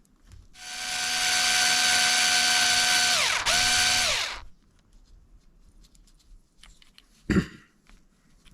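Cordless electric screwdriver driving a screw into an RC car's steering plate: a steady motor whine for about four seconds that briefly stops and restarts, then winds down in pitch. A single knock follows a few seconds later.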